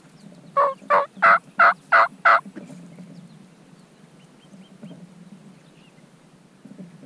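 A wild turkey calling up close: six loud, evenly spaced yelping notes, about three a second, stopping about two and a half seconds in.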